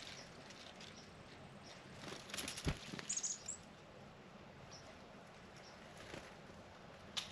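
A bird's wings flutter in a short burst about a third of the way in, with a single sharp knock among the flaps. A few short, high chirps follow, and a faint click comes near the end.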